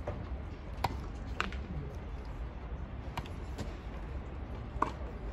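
Tennis ball being hit back and forth in a rally on a grass court: sharp pops of racket strings striking the ball, with its bounces, about five in all and irregularly spaced, over a steady low outdoor rumble.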